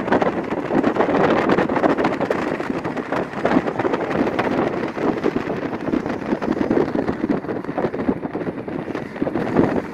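Wind buffeting the microphone over the road noise of a moving car, a steady rushing with constant flutter.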